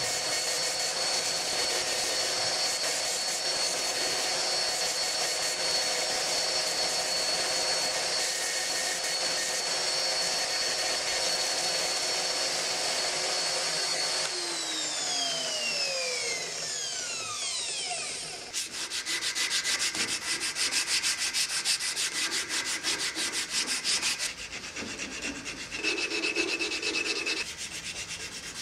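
Angle grinder fitted with a sanding disc running at a steady high whine while a walnut hammer handle is pressed against it; about halfway through it is switched off and its whine falls away over a few seconds. Then the wooden handle is hand-sanded with sandpaper in quick rasping strokes.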